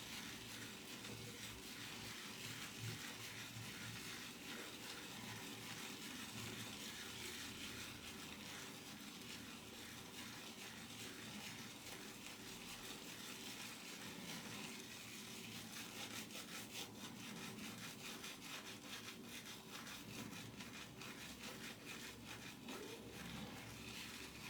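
Damp horsehair shaving brush, a mane-and-tail mix, rubbed quickly over a hard shaving soap puck: a steady, fast scratchy scrubbing as the soap is loaded onto the brush tips.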